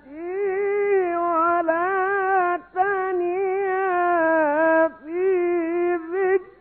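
Male Quran reciter chanting in a drawn-out, ornamented melodic style: long held notes with wavering turns, in several phrases broken by short pauses for breath.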